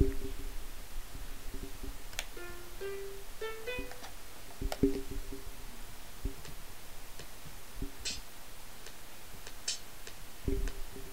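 A simple sequenced melody of sparse, plucked-sounding notes playing from a laptop's music software through its speakers, with a short run of rising notes between about two and four seconds in. A few light clicks are heard among the notes.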